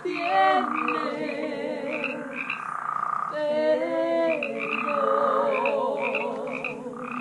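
A chorus of frogs calling: many overlapping calls, some held and wavering, with short calls repeating over them.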